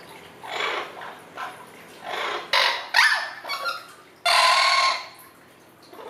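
Orange-winged amazon parrot calling: a run of short squawks and chattering notes, one with a quick rise and fall in pitch, then one loud harsh squawk about four seconds in that lasts under a second.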